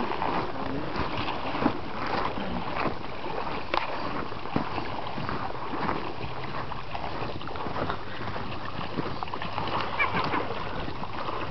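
Shallow river water flowing and rippling, with splashing and sloshing from a person wading through it and a few small sharp clicks.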